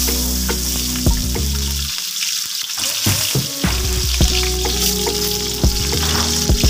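Chopped onions frying in hot cooking oil in a wok: a steady sizzle with scattered crackles.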